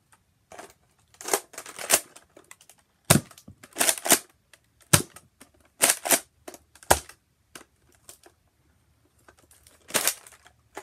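Nerf Recon MK II spring blaster being primed and fired: a dozen or so sharp plastic clacks and snaps, some in quick pairs, with short pauses between.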